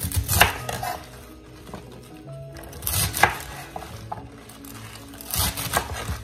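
Kitchen knife chopping yu choy stems on a wooden cutting board, in three short bursts of cuts: at the start, about three seconds in, and near the end. Soft background music plays throughout.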